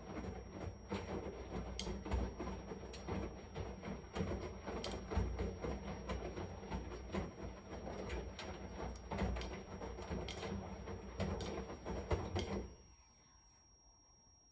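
Washing machine running, its drum tumbling laundry with a low rumble and a dense clatter of small knocks. Near the end the drum stops abruptly and the sound drops away to a faint hum.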